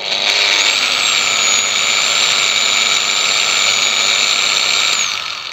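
PROCRAFT PW 1100 ES 125 mm angle grinder with a wire brush fitted, running with no load at its lowest speed setting. It picks up speed over about half a second, runs with a steady high whine, and near the end is switched off, its pitch dropping as it winds down.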